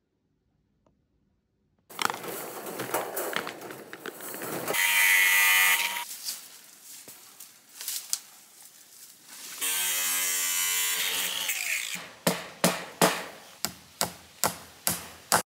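Work on a wire-mesh fence: the wire mesh rustles and scrapes, and a small power tool runs in two spells of a second or so. Near the end comes a run of about nine sharp knocks.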